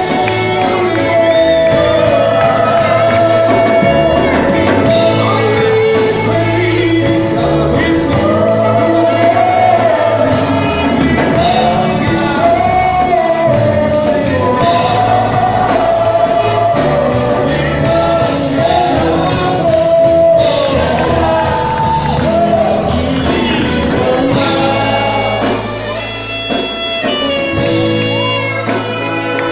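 Live gospel song: singers over a band with drum kit, keyboard and saxophone, amplified through PA speakers in a large hall.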